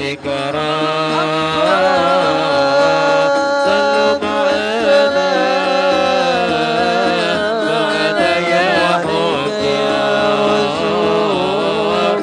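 Banjari-style sholawat: a man sings a long, wavering melodic line into a microphone over a group of frame drums (rebana) beating a steady rhythm.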